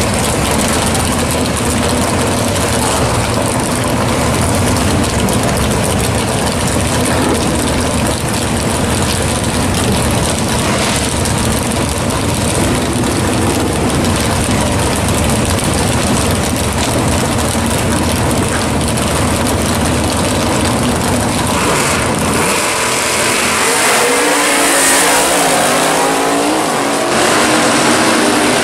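Loud V8 drag-racing cars running at the starting line and launching down the strip. Near the end, an engine note climbs steeply in pitch as a car accelerates hard.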